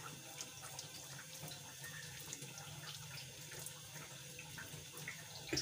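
Faint, steady sizzle of a besan-coated naan deep-frying in hot oil, with scattered small crackles. One sharper knock comes right at the end.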